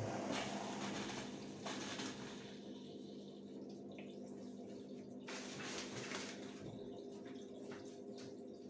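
Electrolux TimeSaver top-loading washing machine starting up suddenly, with water rushing through it over a steady motor or pump hum and a few light clicks.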